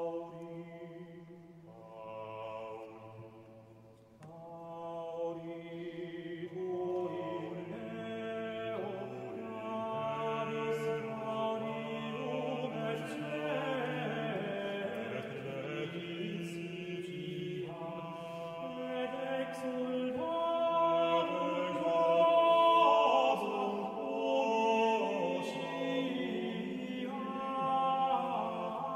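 Slow sacred choral music in a chant-like style, with long held notes. It begins with a single line, more voices join over the first several seconds, and it grows fuller and louder, peaking a little past the middle.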